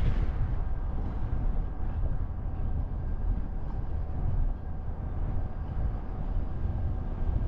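Steady low rumble of road and engine noise from a car driving on city streets, with a faint steady whine above it.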